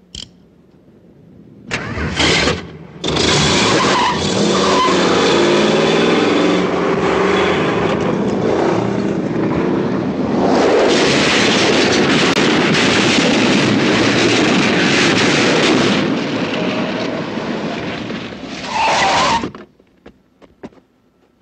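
Car engine revving hard while the tyres spin and skid on a dirt lot, with a swell of tyre squeal just before the noise cuts off sharply near the end.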